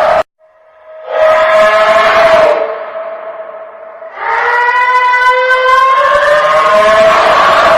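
Long, loud, horn-like drone with a stack of overtones, in two blasts: one of about two seconds that fades, then a longer one from about four seconds in whose pitch slowly rises. The uploader takes it for a blue whale calling.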